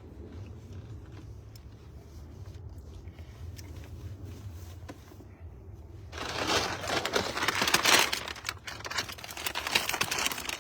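A low steady hum, then about six seconds in, loud close crinkling and rustling that goes on to the end.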